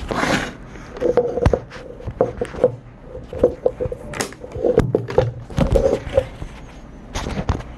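A clear vinyl zippered bag and plastic-wrapped packages of wipes being handled and packed by hand: a run of rustles, taps and knocks with a series of short squeaks.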